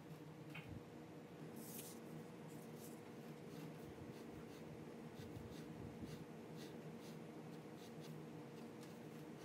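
Fine-tip pen scratching on paper in quick, short strokes while hatching parallel lines, faint over a steady low hum.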